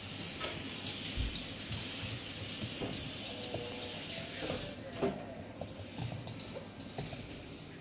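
Shetland sheepdog puppy and adult shelties scuffling on a wooden floor: scattered clicks of claws and paws, with a few short high puppy whimpers or yips around the middle. A steady hiss underlies the first part and drops away about two-thirds through.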